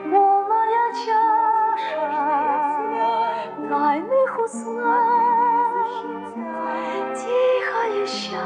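A woman singing a slow, gentle song with vibrato over instrumental accompaniment.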